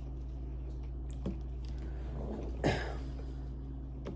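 A few light clicks and one short, louder rustle over a steady low hum.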